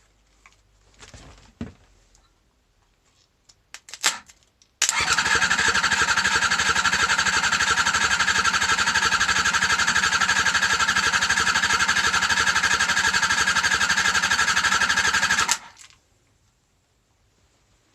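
Honda MC14E 250 cc inline-four motorcycle engine spun over by its electric starter for a compression test: a steady, fast-pulsing whir lasting about ten seconds that starts and stops abruptly. A few light clicks and knocks come before it.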